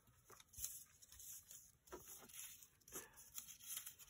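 Faint rustling of paper cutouts being sorted through by hand on a cutting mat: a handful of soft, brief rustles and touches.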